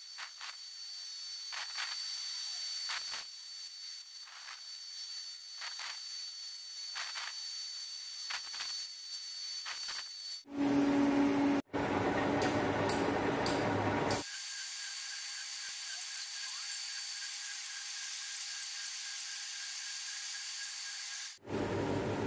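Angle grinder grinding a hardened steel tap clamped in a vise, shaping the tap into a lathe threading tool: a high, steady grinding hiss with brief regular dips as the disc is eased off and pressed back on. About ten seconds in it cuts abruptly to a metal lathe running for a few seconds with a steady low hum.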